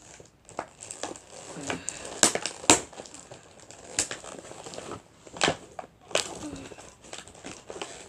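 Plastic and cardboard toy packaging being handled and cut open with scissors: crinkling, with irregular sharp crackles and snaps.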